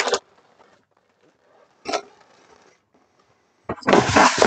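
Cardboard box of a brick set being opened and handled, with the plastic bags of bricks inside rustling as they are tipped out onto a table. There is a short scrape at the start and another about two seconds in, then a longer, louder rustle near the end.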